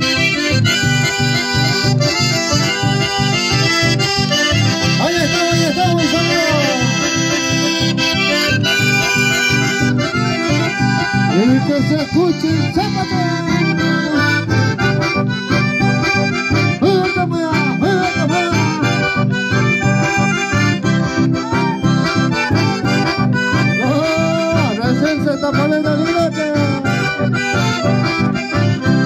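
Live dance music from two button accordions and an acoustic guitar, playing with a steady, even beat.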